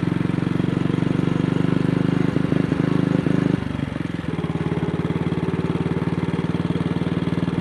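AJS Model 8 motorcycle engine running with a dense, even train of exhaust pulses; the note drops and quietens a little past three and a half seconds in. The bike is misfiring.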